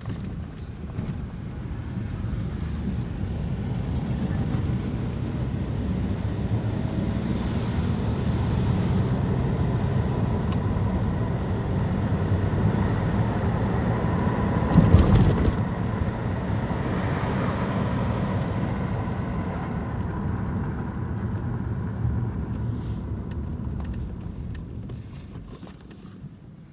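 Audi 2.7T twin-turbo V6 engine running, with turbo flutter and hissing whose cause the owner does not know. The sound swells to a brief louder surge about halfway through and fades near the end.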